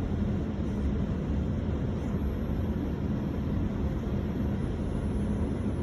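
GO Transit commuter train's diesel locomotive running as the train pulls out, a steady low rumble with a constant hum.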